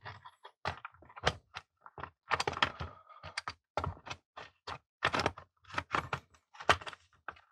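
Parts of a jigsaw being handled and fitted back into its plastic housing: a quick, irregular run of light clicks and knocks.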